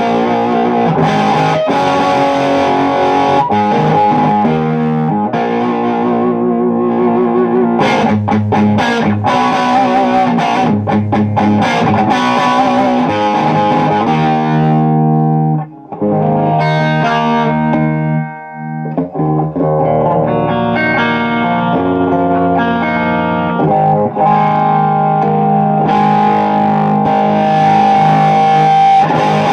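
Electric guitar played through a Port City tube amp head and cabinet, with a slightly distorted tone, trying the amp's cathode switch, a lower-gain setting. Ringing chords and single notes are played, with two short breaks a little past halfway.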